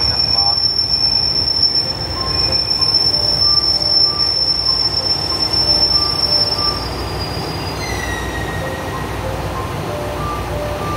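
HOT7000-series Super Hakuto diesel express train pulling slowly into the station, its wheels giving a steady high squeal for about the first seven seconds over a low engine and rail rumble, then a short falling squeal as it slows to a stop.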